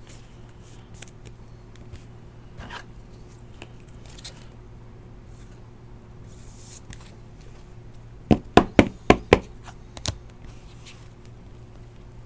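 Bowman Chrome baseball cards handled and flipped through by hand: soft rustles and small clicks of the card stock, then a quick run of about five sharp taps a little after eight seconds in and one more about a second later, over a steady low hum.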